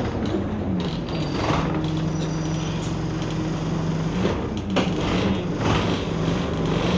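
Bus in motion heard from inside the passenger saloon: a steady engine and drivetrain hum, with a few short rattles from the body about one and a half, four and a half and five and a half seconds in.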